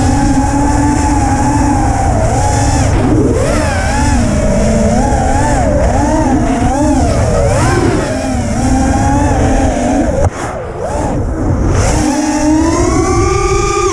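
QAV-R racing quadcopter's brushless motors and propellers whining, pitch swinging up and down constantly with throttle, heard close up from the onboard camera. About ten seconds in there is a sharp click and a brief drop, then the whine climbs steadily again.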